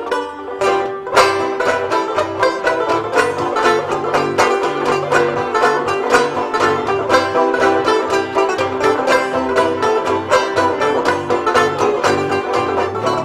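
Bluegrass-style music led by a quickly picked banjo, with a bass line stepping underneath.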